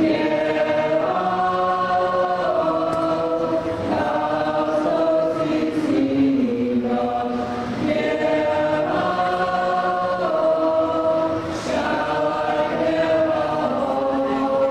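Men and women of a folk dance group singing a Croatian folk song unaccompanied, several voices together on long held notes. The phrases are broken by short pauses about every four seconds.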